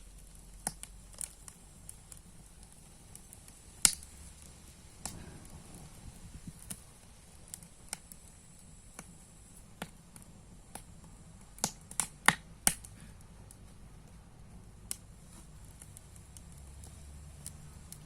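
Campfire of dry branches crackling: irregular sharp pops and snaps over a faint steady hiss, with one loud pop about four seconds in and a quick run of four loud snaps about twelve seconds in.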